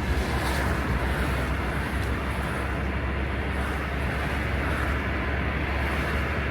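Steady road and engine noise inside a moving car, a constant low rumble under an even hiss.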